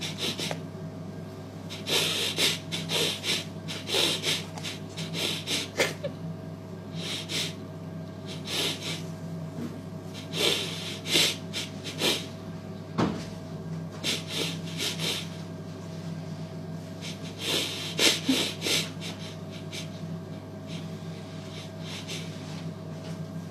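Steady low hum with irregular short rustling, scraping noises coming in clusters, and a single sharp click about halfway through.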